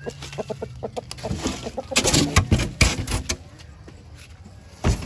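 A chicken clucks briefly at the start. Then a styrofoam box is handled, giving a run of scrapes and knocks that is loudest around the middle, and one sharp thump near the end.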